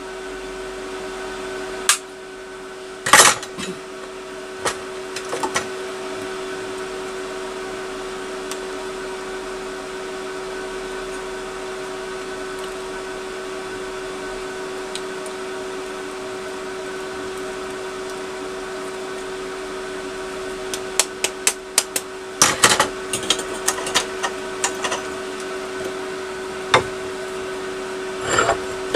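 Metal tapping and light hammer blows on a perforated steel exhaust-baffle tube as its snipped tabs are bent over. There are a few isolated knocks in the first six seconds and a rapid flurry of taps over the last eight seconds. Under them runs a steady electrical hum from workshop equipment.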